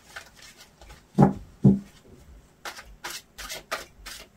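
A deck of tarot cards shuffled by hand, cards slipping and slapping against each other in short clicks. Two louder dull knocks come a little over a second in, then a quick run of five or six card clicks near the three-second mark.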